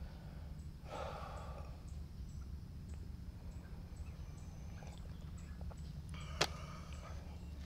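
Quiet campsite ambience with a steady low hum and faint high ticking. About a second in there is a brief soft rustle, and about six and a half seconds in a stainless steel camping mug gives a single sharp metallic clink with a short ring.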